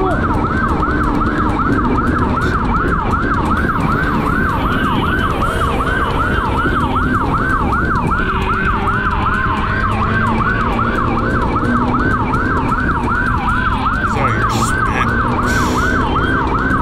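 Police siren on a fast yelp, its pitch sweeping up and down about three times a second without a break, over the steady low rumble of a motorcycle riding through traffic.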